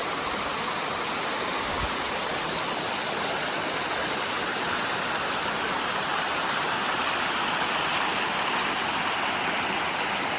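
Flowing stream water, a steady, even rush.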